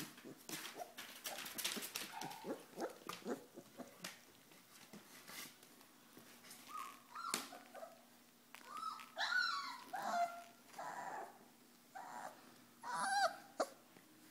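Four-week-old Pyrenean Mastiff puppies play-fighting. Scuffling and short noises come first, then from about halfway a series of short, high-pitched whimpers and yips.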